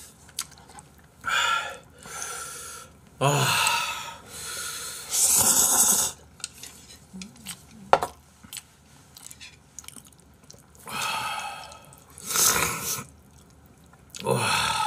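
Noodle slurping and sharp hissing breaths through the mouth, coming in short bursts every second or two, from people eating jjapagetti with their mouths burning from very spicy kimchi. A single sharp click about eight seconds in.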